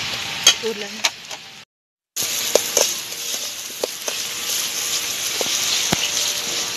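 Mushroom masala sizzling and frying in a steel pan, with a metal spoon clicking and scraping against the pan as it is stirred. The sound cuts to dead silence for about half a second near the two-second mark, then the steady sizzling hiss with occasional clicks carries on.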